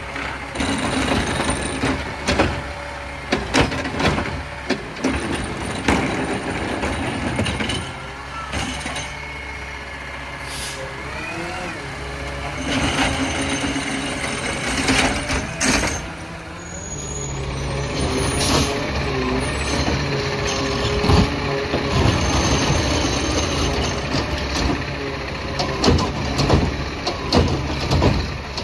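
Peterbilt 520 garbage truck with a ZR automated side-loader body at work. Its arm shakes a cart over the hopper with a run of bangs and clatters in the first several seconds, followed by a rising hydraulic whine as the arm works. From about halfway the diesel engine runs louder and steadier as the truck pulls ahead.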